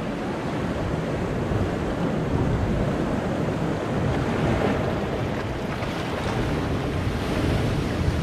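Sea surf washing in among rounded shore boulders: a steady rush of water that swells a little as each wave comes in, with a wave breaking and splashing against a rock near the end.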